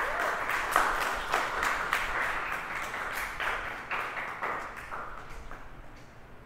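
Congregation applauding, a dense patter of hand claps that thins out and fades over the last couple of seconds.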